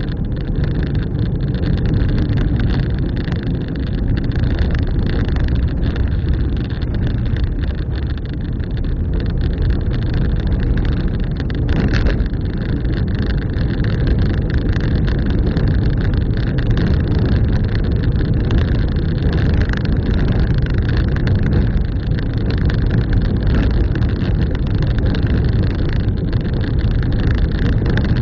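Car driving along the road: a steady low rumble of engine and tyre noise, with one brief bump about twelve seconds in.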